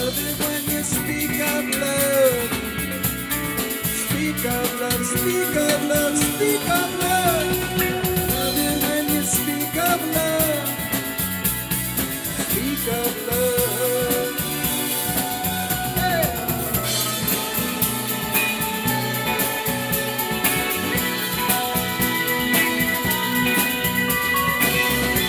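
Live rock band playing an instrumental passage: electric guitars, bass guitar and drum kit, with a lead line of sliding, bending notes over it.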